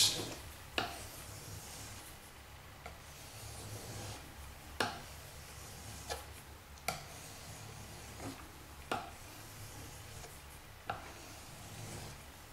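Knife blade stroked across a wet 800-grit whetstone, one stroke on one side then one on the other, each stroke a faint scrape with a brief sharper edge to it, about seven in all at irregular intervals. These alternating finishing strokes straighten and smooth the edge after each side has been sharpened.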